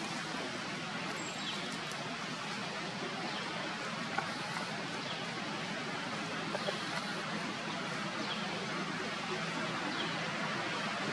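Steady outdoor background hiss, with faint short high chirps now and then.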